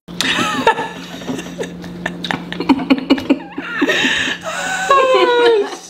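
Laughter: a man laughing heartily, then women chuckling and giggling, with a long falling laugh near the end. A steady low hum runs under it and stops about five seconds in.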